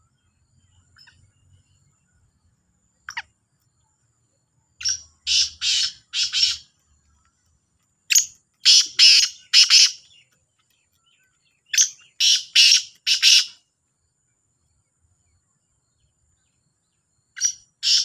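Caged black francolins calling: three loud calls, each a quick phrase of about four short, harsh notes, a few seconds apart, and another call starting near the end.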